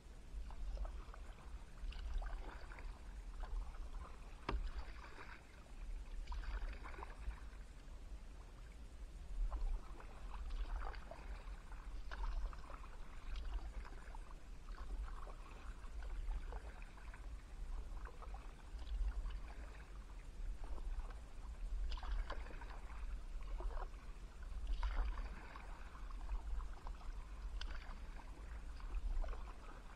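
Kayak paddle blades dipping and splashing into calm river water in a steady stroke rhythm, about one splash every second or so, over a constant low rumble.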